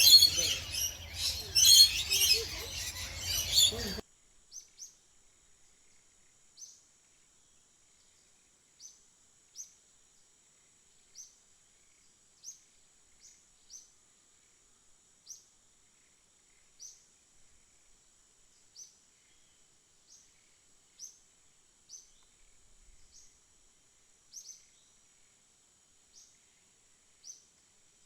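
Many aviary birds chattering and chirping together, busy and loud, until it cuts off abruptly about four seconds in. After that it is quiet apart from short, high, downward chirps about once a second.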